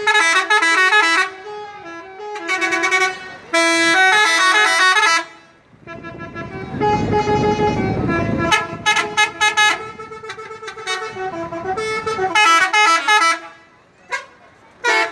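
Indonesian bus 'telolet' horns: several tuned air horns play quick, stepping melodic note sequences in phrases that stop and start. A stretch of low rumbling noise sits around the middle.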